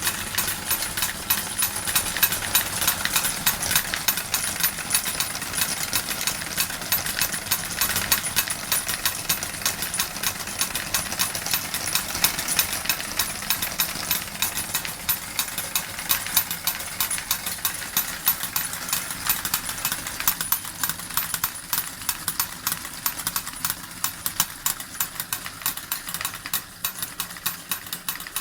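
Model steam engine driving two miniature forging hammers: rapid, continuous clattering and knocking of the hammers and drive over the running engine.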